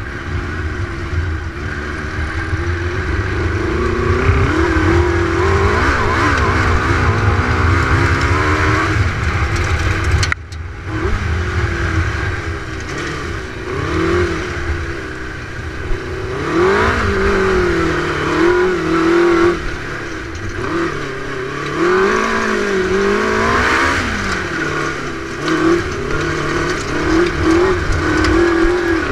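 Suzuki GSX-series motorcycle engine in an off-road dune buggy, revving up and down repeatedly as the buggy is driven hard over rough ground. The engine note breaks off briefly about a third of the way in, then picks up again.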